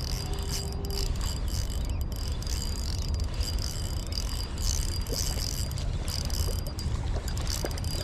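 Wind rumbling steadily on the microphone, with a thin high-pitched whine over it.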